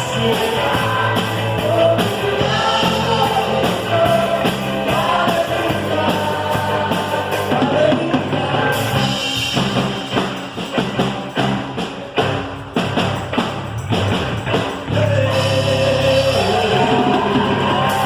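Worship band playing live with drum kit and singing voices. For several seconds in the middle the drums come to the fore with rapid hits while the singing drops back, then the singing returns.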